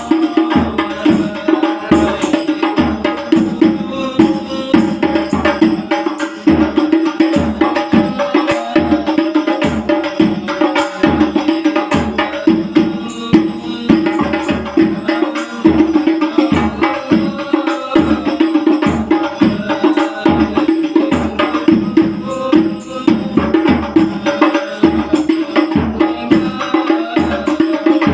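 Rebana frame drum ensemble playing a fast, steady rhythm of deep bass strokes and bright slaps, over a sustained held tone.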